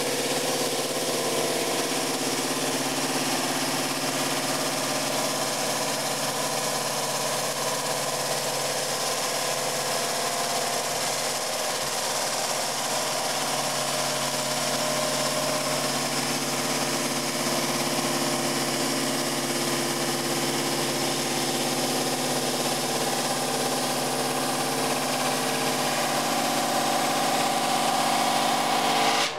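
Homemade drum sander running on a small 80-watt electric motor, a steady hum and whir from the motor and sandpaper drum as a board is fed under it. The motor is badly underpowered for the job: it barely comes up to speed, where at least a kilowatt is wanted.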